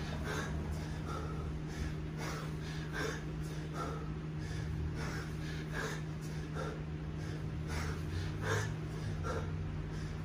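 Heavy, rhythmic breathing of a man snatching a 20 kg kettlebell: forceful exhales and sharp gasps about two a second, in time with the swings. This is the laboured breathing of hard exertion late in a ten-minute snatch set. A steady low hum runs underneath.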